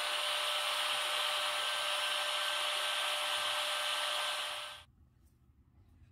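A steady hiss of noise with a faint hum in it, like a running fan or white-noise machine, that cuts off suddenly near the end.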